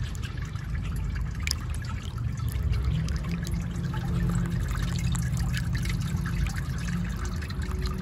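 Small solar-powered fountain pump sending water bubbling up through a nozzle and trickling down over concrete and stones, steady with many small splashes and drips.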